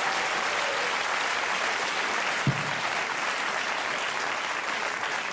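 Theatre audience applauding steadily, with one low thump about two and a half seconds in.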